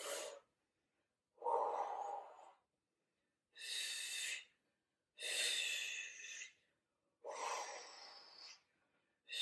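A woman breathing hard and audibly while straining through an abdominal scissor-leg exercise: five separate breaths about a second and a half apart. Some are low and breathy, others higher and hissing.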